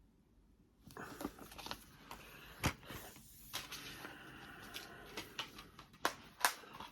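Handling of plastic DVD cases and a paper booklet: rustling with a string of sharp plastic clicks and snaps, starting about a second in.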